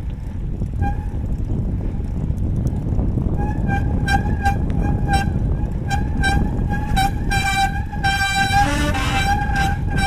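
Mountain bike disc brake squealing under pressure while riding: a high pitched squeal that pulses a couple of times a second. It is faint at first and steadier and louder from a few seconds in. The rotor is being bedded in after a de-squeak treatment, and squealing is expected at this stage until it fades under near-maximum braking. Wind and tyre rumble sit underneath.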